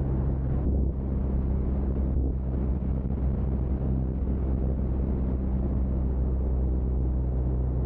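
Biplane's propeller engine running steadily at cruise in flight, a constant low drone, with airflow rushing over the wing-mounted microphone.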